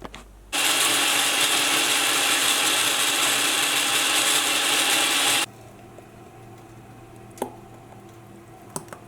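Countertop blender running steadily for about five seconds, blending a smoothie, then cutting off abruptly; a few faint clicks follow.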